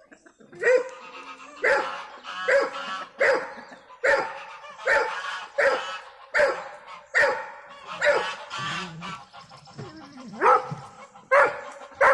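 An animal calling loudly over and over, about fourteen short pitched calls at a steady pace of just over one a second.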